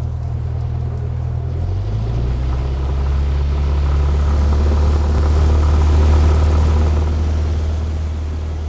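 Small propeller airplane's piston engine running, a loud steady low drone with a hiss over it that swells to its loudest a little past the middle and eases off near the end.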